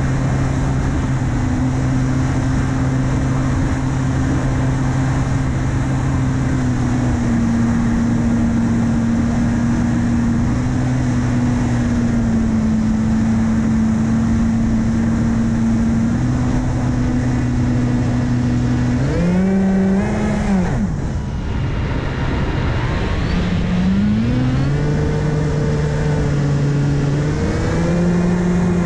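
A multirotor drone's 2212 1400KV brushless motors spinning 8x6 APC propellers, heard from the onboard camera with wind rush. The motors hold a steady hum that shifts in small steps. About two-thirds through, the pitch swoops up and down, and near the end it rises again as the motors speed up and slow down.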